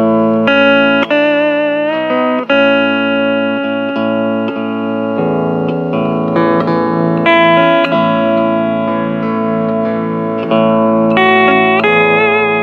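Hawaiian steel guitar playing a slow melody: held notes with a wavering vibrato and sliding pitch, over steady sustained accompaniment chords.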